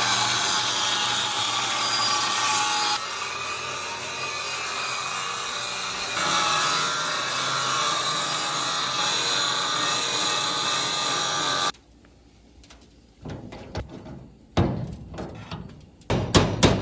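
Angle grinder cutting sheet steel, a steady loud hiss with a motor hum under it that cuts off sharply about twelve seconds in. A few knocks follow, then a quick run of hammer blows on steel near the end.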